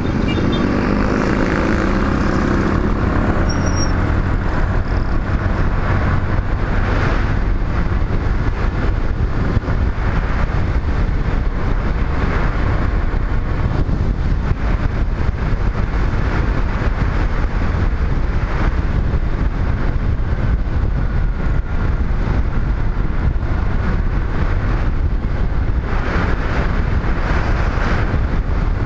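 Riding noise from a motorcycle: steady wind rumble on the microphone over the motorcycle's running engine. An engine note stands out in the first few seconds, while the motorcycle passes a tricycle.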